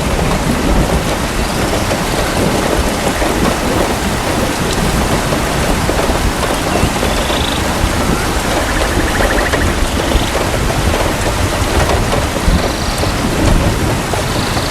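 Steady rain falling with a low rumble of thunder underneath. A few faint, short high calls sound through the rain now and then.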